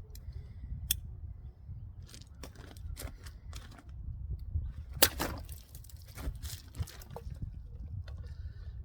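Leatherman Bolster multitool's knife blade cutting and hacking into hard plastic: a series of sharp clicks and scraping cuts, the loudest crack about five seconds in.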